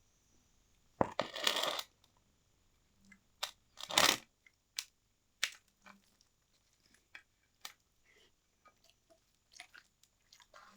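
A person eating close to the microphone: two loud crunching bites, about a second in and about four seconds in, then smaller wet mouth clicks and chewing.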